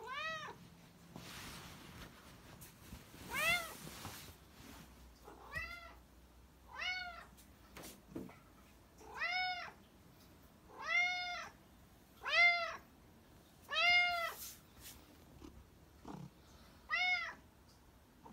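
Domestic cat meowing about nine times, each meow rising and then falling in pitch, spaced one to three seconds apart.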